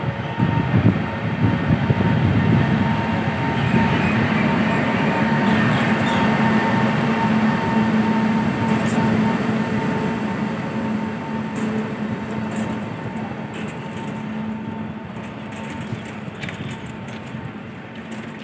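WAG-9 electric locomotive pulling away slowly: a steady electric hum with a higher whine over wheel noise. It is loudest as it passes close and fades as it moves off.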